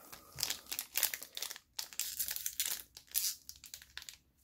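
Foil trading-card booster pack crinkling in irregular bursts as it is handled and gripped by its top edge to tear it open.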